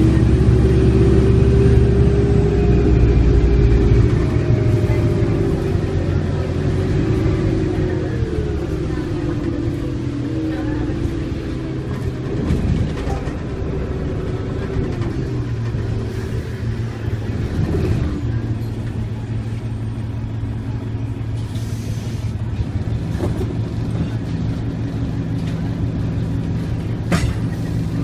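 Cabin sound of a 1995 New Flyer D40LF transit bus under way, its Detroit Diesel Series 50 four-cylinder diesel running with a steady low rumble. A drivetrain whine slides slowly down in pitch over the first few seconds as the bus eases off. A few brief knocks and rattles come later.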